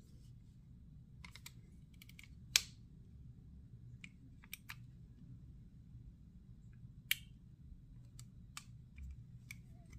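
Scattered sharp clicks and light knocks from a Colt 1911 Government Model CO2 BB pistol as its slide is worked forward off the frame and handled. Two clicks, about two and a half seconds and seven seconds in, are much louder than the rest.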